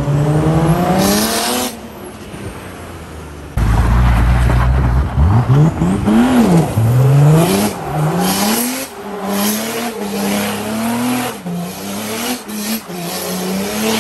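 Nissan Y61 Patrol's swapped-in Mercedes OM606 six-cylinder turbo diesel revving hard in a four-wheel burnout. The engine note rises and falls repeatedly as the throttle is worked, then holds high, over the hiss and squeal of the spinning tyres. The sound cuts abruptly twice in the first four seconds.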